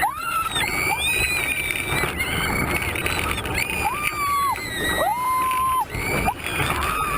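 A roller coaster rider screaming again and again, several long high-pitched held screams of about a second each, over the steady rush of the moving ride.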